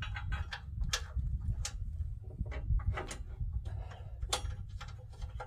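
Irregular metal clicks and taps as a steel steering box brace is worked into place against a Jeep Cherokee XJ's frame rail and steering box bolts during a test fit.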